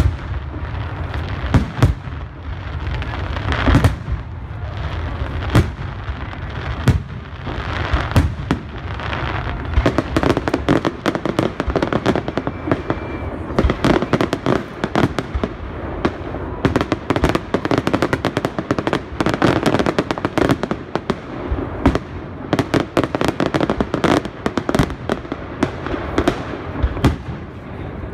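Fireworks display: aerial shells bursting in an irregular run of sharp bangs and cracks, coming thicker and faster from about a third of the way in.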